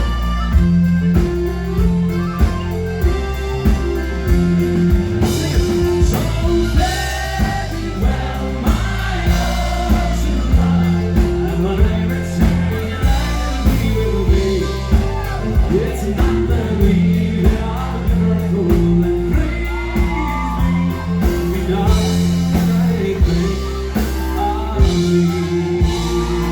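A live band playing an upbeat song with a steady beat, guitar and drums, with singing over it.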